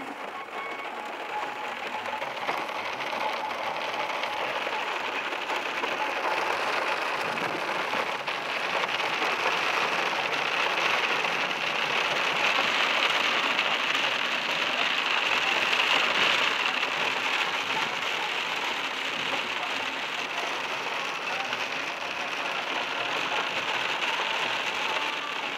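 Heavy rain falling, a steady hiss of drops that builds to its loudest in the middle and eases a little toward the end.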